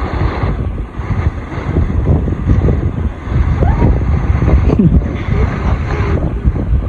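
Strong wind buffeting the microphone: a heavy, gusting low rumble that swells and eases.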